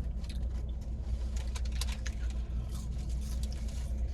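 Low steady hum of a car heard from inside the cabin, with scattered small clicks and rustles over it.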